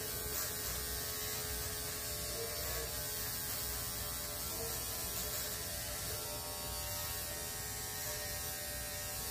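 Cordless electric dog clipper running steadily, a constant hum as it trims the hair on a Schnauzer's hind foot.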